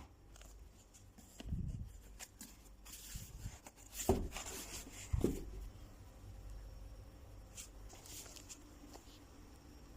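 Faint handling noises in a small room, with a dull thud about a second and a half in and two light knocks about a second apart near the middle.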